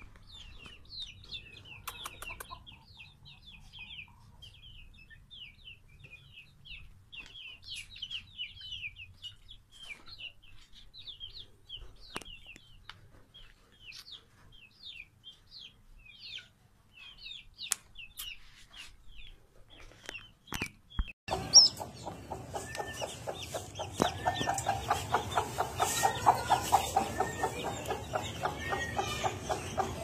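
Rapid high-pitched chirping, several short falling notes a second. About two-thirds in it changes abruptly to louder, rhythmic clucking from a broody hen with her newly hatched chicks peeping.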